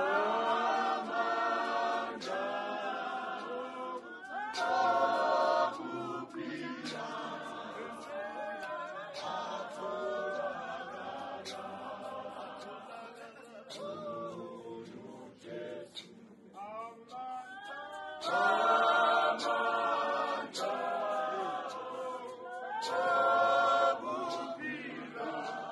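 A church congregation of men and women singing a hymn together in chorus, growing louder on some phrases and easing off between them.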